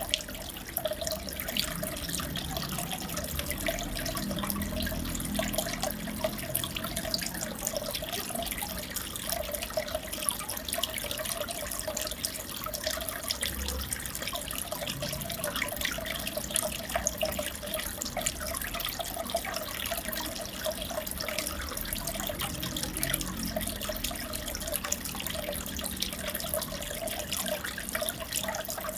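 Aquarium water trickling and bubbling steadily, with a wavering tone underneath.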